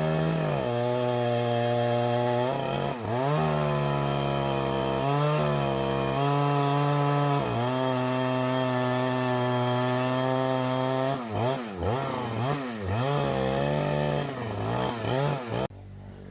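Husqvarna chainsaw running at high revs while cutting through a large tree trunk, its pitch dipping briefly several times under load. Later it is revved up and down quickly several times, then the engine sound stops abruptly near the end.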